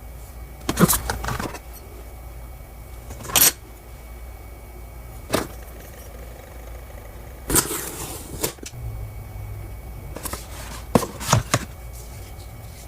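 Xiaomi 15 Ultra photography kit packaging being handled and opened: scattered rustles, scrapes and clicks in about five short bursts over a steady low hum.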